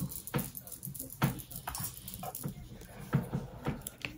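Handling noises from a small plastic cosmetic tube: about seven scattered light knocks and clicks with soft rustling in between.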